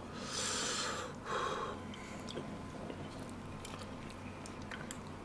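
Two loud breaths in the first two seconds, then faint scattered clicks and smacks of a person eating, pulling meat off pork spine bones by hand.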